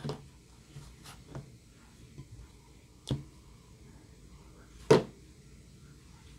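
Slime being handled: a few sharp, sticky pops and clicks with quiet between them, the loudest about five seconds in.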